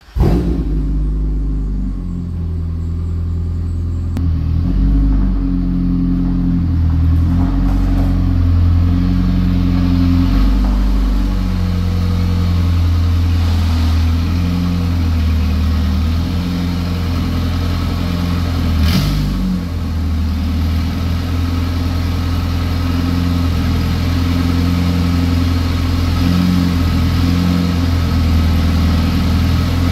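Honda Accord's engine running at low revs through an aftermarket exhaust as the car creeps forward, a deep low rumble whose pitch shifts a little. A short sharp knock or click about 19 seconds in.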